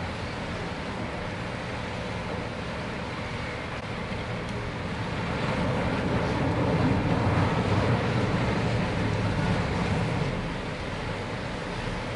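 Low rumble of an Emerald-class Sydney ferry's engines and propellers as it manoeuvres into a wharf, swelling for about five seconds from near the middle as the propellers churn the water, then easing back.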